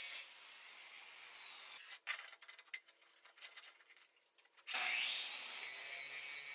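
Suhner angle grinder switched off and winding down with a falling whine. Then come a couple of seconds of metal clicks and knocks as the cast iron plow is handled at the vise. About five seconds in, the grinder starts up again with a rising whine and runs steadily at speed.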